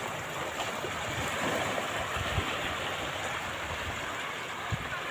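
Steady rushing wash of sea surf breaking on the shore. Two soft low thumps, about two seconds in and near the end.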